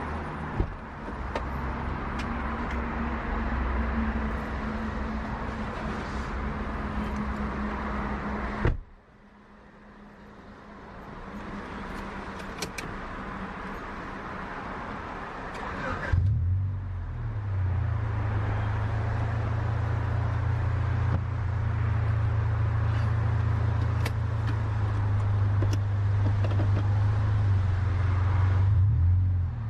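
A 1998 Honda Prelude running and being driven: engine drone with road noise. It cuts off abruptly about nine seconds in, comes back quieter, and from about sixteen seconds in a strong steady engine drone carries on.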